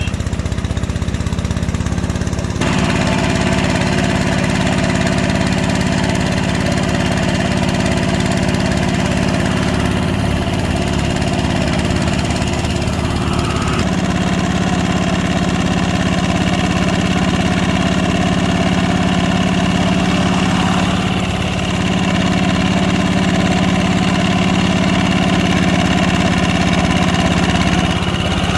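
Engine of a two-wheel hand tractor (motor plough) running steadily under load as it pulls steel mud wheels through a flooded rice paddy. Its note shifts slightly a few seconds in and again about halfway through.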